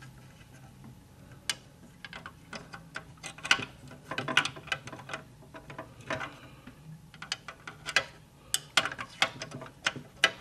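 Irregular small clicks and taps of plastic on plastic as a replacement spool pin is worked back through its hole in the plastic housing of a Brother SE400 embroidery machine, some in quick clusters.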